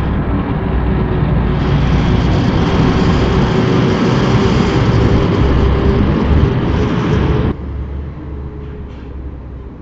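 Sliding storm shutters (amado) rumbling loudly along their track as they are pulled shut, stopping abruptly about seven and a half seconds in.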